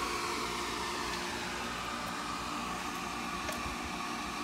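Steady mechanical whir with hiss, as from a running fan unit, even throughout.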